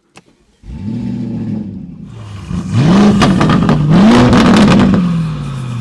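Lamborghini Urus Venatus by Mansory's 745 hp twin-turbo V8 firing up about half a second in and settling at a fast idle. It is then revved twice, the pitch rising and falling each time, with sharp crackles through the revs, before dropping back toward idle.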